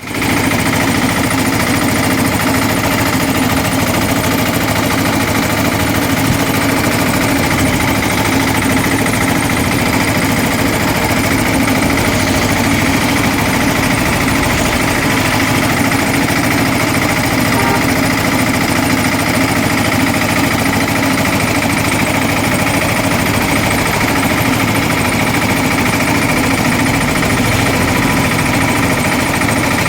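Sugarcane juice crushing machine running steadily, a constant mechanical drone.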